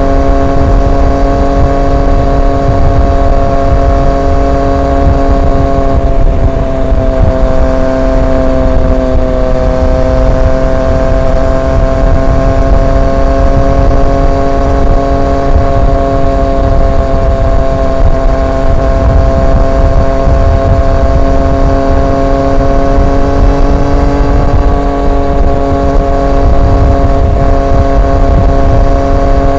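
Triumph Street Triple 765 RX's three-cylinder engine through an SC Project S1 exhaust, cruising at a steady speed. The pitch holds almost constant, easing off slightly about six seconds in and picking up a little near the end.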